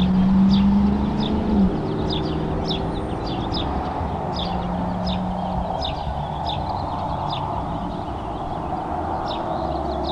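Small birds chirping, short high chirps repeated irregularly about once or twice a second, over a steady outdoor background rumble. A steady low hum is loudest in the first second and a half, cuts off, and briefly returns about halfway through.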